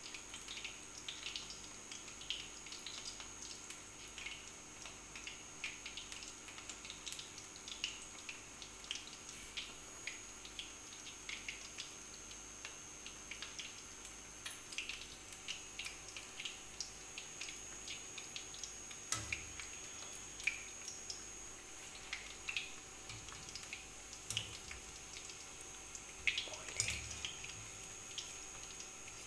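Egg-batter pakoras deep-frying in hot ghee in a steel karahi: a steady sizzle full of small crackling pops. A few soft knocks come in the last third.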